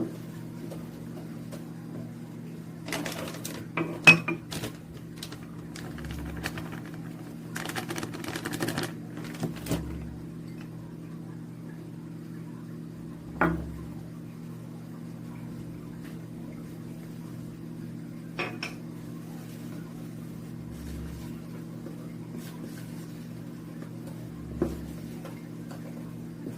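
A utensil stirring flour into a thick bread batter in a bowl, with scraping and clinking against the bowl in a few bursts and single knocks later, over a steady low hum.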